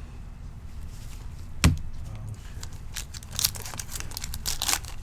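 A trading-card pack's foil wrapper crinkling and tearing open in several short bursts in the second half, with one sharp knock about a third of the way in.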